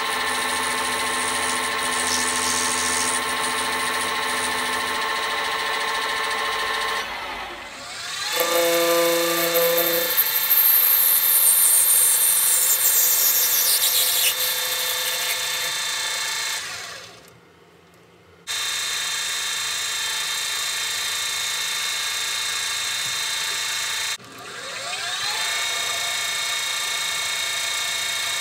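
Small metal lathe running with a steady motor whine. It winds down and spins back up a couple of times, with a brighter high hiss for a few seconds in the middle, and falls nearly quiet for about a second and a half past the middle.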